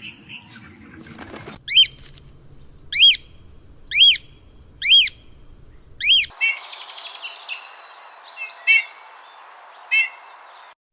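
A bird calling, repeating the same short whistled note five times about once a second. Then the background changes to a steady hiss, with a quick rattling run of notes and two more short calls.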